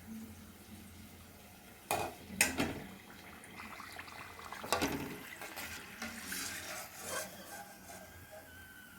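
Puris frying in hot oil: a low sizzle, with a few sharp knocks of a utensil against the pan about two and five seconds in.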